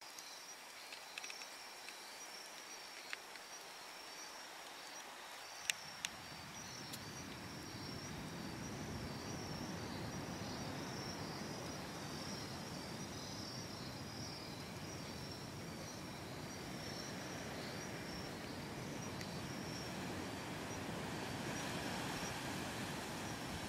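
Insects chirping at night in a steady, pulsing high-pitched chorus. A few sharp clicks come in the first six seconds, the loudest about six seconds in, and a low rumble of noise comes in about then and stays.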